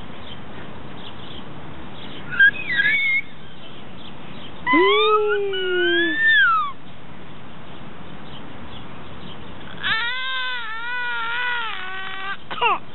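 An infant's voice squealing and babbling: a short high squeak, then a longer call whose pitch bends up and down, and near the end a wavering drawn-out call.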